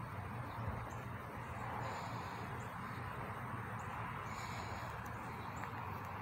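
Short, high-pitched animal chirps recurring roughly once a second over a steady outdoor background hum.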